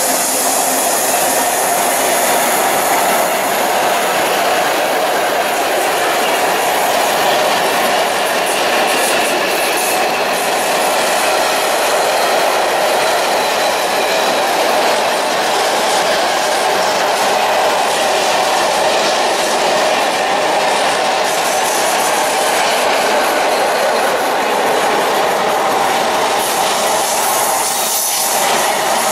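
Container flat wagons of a freight train rolling past at speed close by: a loud, steady noise of steel wheels running on the rails that doesn't let up.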